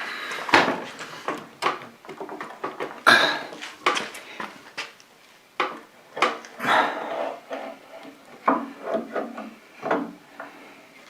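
Irregular metal clanks and knocks, with some scraping, from forcing a stubborn stuck part loose by hand.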